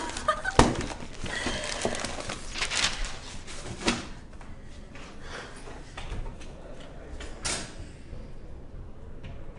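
Scattered knocks, clicks and rustling of a person handling things and moving about in a small room, with a sharp knock about half a second in.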